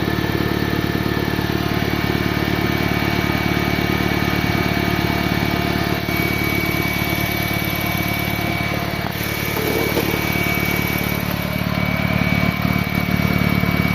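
BMW E46 petrol engine idling steadily on its first run after a timing chain replacement, with a steady high whine over the idle. The owner puts this strange noise down to the engine still building vacuum and expects it to settle in a few seconds.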